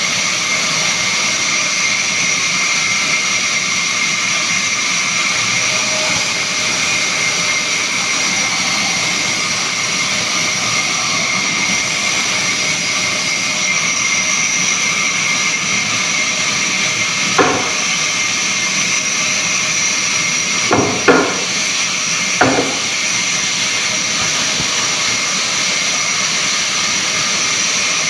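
Woodworking machine running steadily with a loud hiss and a high whine, with four sharp knocks in the second half, two of them close together.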